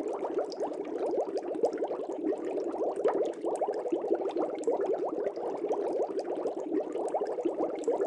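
Steady underwater bubbling: a dense, continuous stream of small bubbles gurgling, like an aquarium air stone or aerator.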